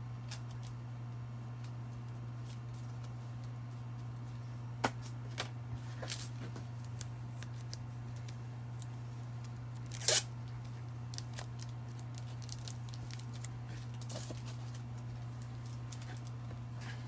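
A steady low hum, with a few light clicks scattered through it and one short, sharper noise about ten seconds in.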